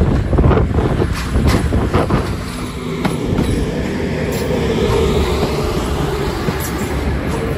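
CrossCountry Class 220 Voyager diesel-electric multiple unit passing at low speed, its wheels clicking over the track joints and pointwork for the first couple of seconds, then the steady hum of its underfloor diesel engines as the cars go by.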